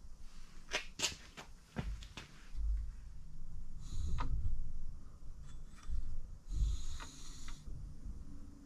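Crankshaft being turned by hand in a bare engine block: a few sharp metallic clicks in the first two seconds, low thuds, and two short hissing rushes near the middle and toward the end.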